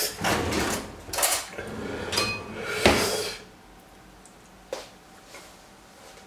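Knocks and clatter of a kitchen refrigerator being opened and things in it handled, with the sharpest knock about three seconds in. After that it goes quiet apart from one faint click.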